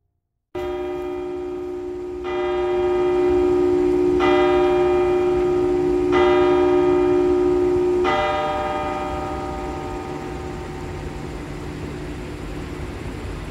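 A church bell striking five times, about two seconds apart, with its hum carrying under each stroke. After the last stroke it is left to ring and slowly fade.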